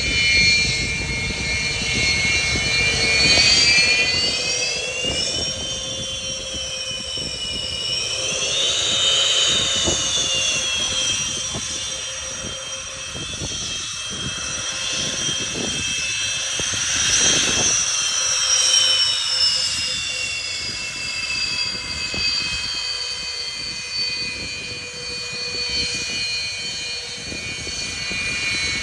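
Royal Malaysian Air Force Sukhoi Su-30MKM jet fighter, its twin AL-31FP turbofans running with a loud roar and a high, many-toned whine. The whine rises twice in the first ten seconds, then slowly falls over the second half.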